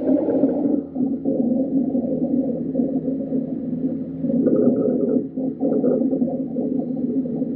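Breath sounds of a child with bronchiolitis: low-pitched, musical wheezing tones heard close up, the sign of small airways narrowed by inflammation and mucus.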